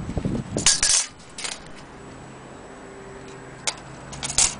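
A few irregular sharp clicks and rustles of handling, after a low rumble of handling noise that dies away in the first second.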